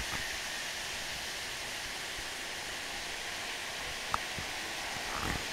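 Steady, even hiss of background noise, with a single short click about four seconds in.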